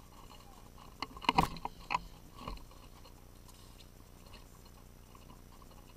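Footsteps crunching through crusty snow and dry brush: a cluster of crunches about a second in and one more shortly after.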